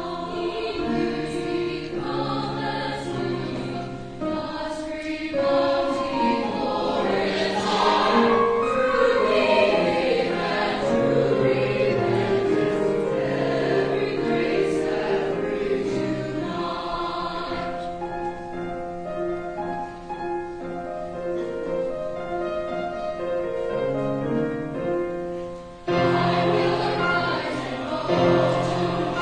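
Choir singing in sustained chords, softer for a stretch in the middle before the fuller sound returns near the end.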